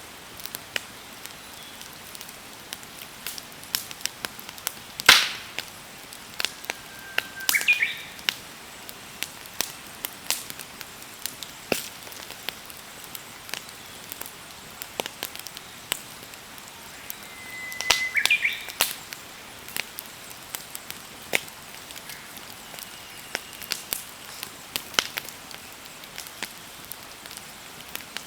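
Wood campfire crackling, with frequent sharp pops over a steady hiss. A bird calls twice, once about a quarter of the way in and again past the middle.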